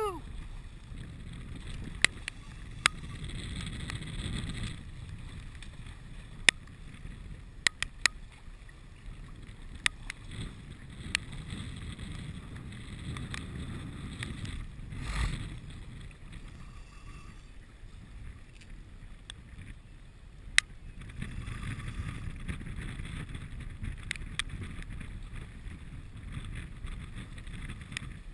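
Wind buffeting the microphone over choppy water, a rushing noise that swells and fades, with scattered sharp clicks at irregular intervals and a brief louder rush about halfway through.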